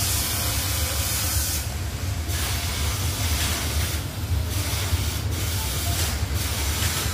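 Paint spray gun hissing in repeated bursts of a second or two, with short breaks between them, over a steady low hum.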